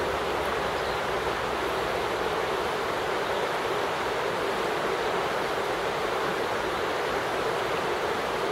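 Steady rushing of river water, an even noise that holds without change.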